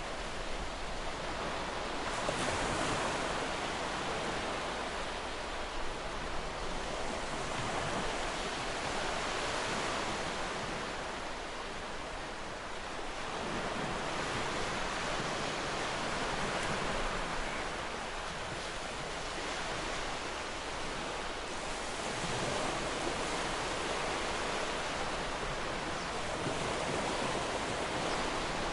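Sea waves breaking and washing on a shore, a continuous rush that swells and eases every five or six seconds.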